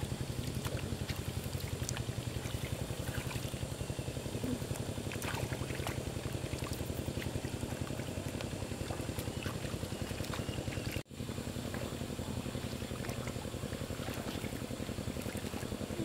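Small diesel engine of a walking tractor running steadily while plowing a wet rice field, with a quick even pulse; it drops out for an instant about eleven seconds in, then carries on.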